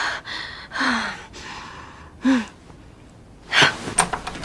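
A woman's two short, breathy gasps, about a second in and again just after two seconds. Near the end comes a sharp, sudden noise followed by a couple of clicks, loud enough to wake the house.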